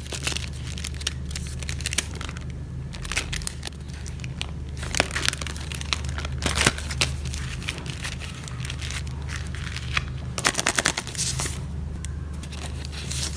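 Handmade paper surprise packets being handled, with irregular crinkling and crackling of paper and wrapping, denser in two spells, midway and near the end.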